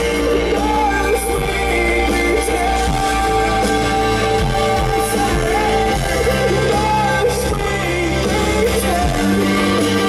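Loud live rock band playing, with a male lead singer singing over it.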